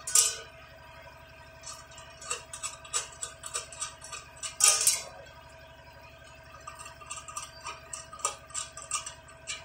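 Small metal clicks and clinks of chandelier fittings being handled against a round metal canopy plate, with two louder clanks, one right at the start and one about halfway through.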